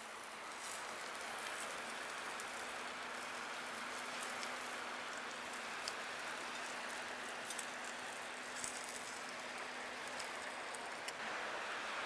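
Wood fire crackling in a titanium RSR Nature Stove, with frequent sharp, irregular pops over a steady hiss.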